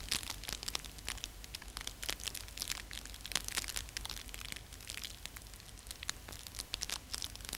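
Fire crackling in a hearth: a thin run of irregular sharp crackles and pops, several a second, over a faint hiss.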